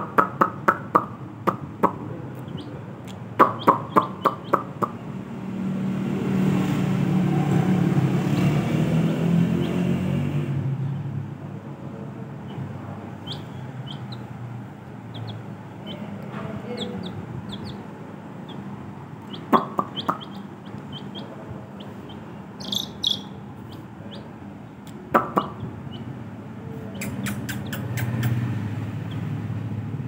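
A young chicken chick peeping in short high notes, scattered through the second half. Near the start come two quick runs of sharp clicks, and in the middle a low noise swells and fades.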